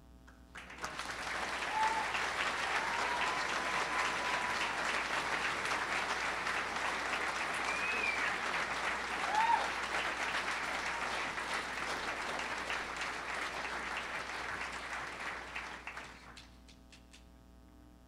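Audience applauding, a dense steady clapping that starts about a second in and fades out about sixteen seconds in, with a few brief calls rising above it.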